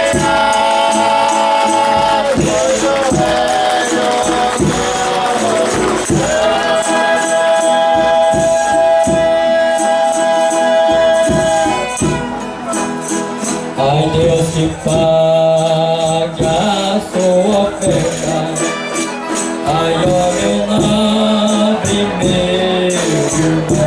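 Folia de reis company singing in chorus, holding long drawn-out notes, over steady tambourine jingles.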